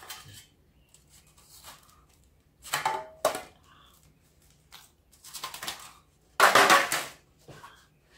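Thin metal sheets and tin foil handled and stacked on a table, rattling and crinkling in a few short bursts, the loudest about six and a half seconds in.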